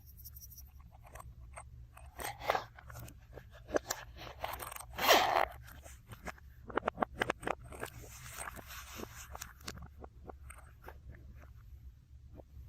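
Slime-making handling sounds: crunching and scraping with many small crackles and clicks, and one louder crunch about five seconds in.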